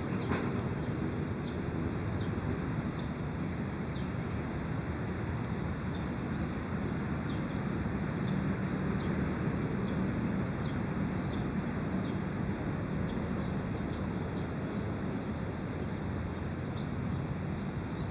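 Steady outdoor background noise, with faint short chirps repeating somewhat under twice a second and a thin, steady high-pitched hiss above.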